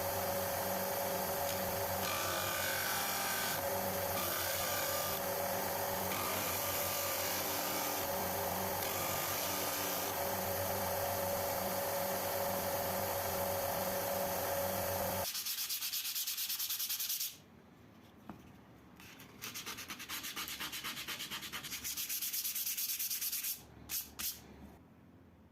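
Wood being sanded: a machine-driven sander runs with a steady hum for about fifteen seconds and then stops. Two shorter spells of quick, even sanding strokes follow, with a couple of clicks near the end.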